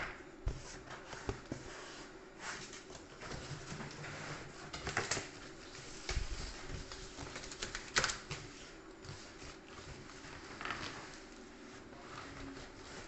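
Cardboard packaging being handled: carton flaps rustling and the packed inner box scraping against the outer carton as it is lifted out and set down, with irregular sharp knocks, the loudest about 8 seconds in.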